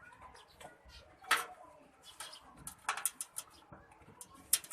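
Scattered sharp clicks and taps from computer parts and connectors being handled and fitted during desktop PC reassembly, the loudest about a second in, with a quick run of them in the middle and another near the end.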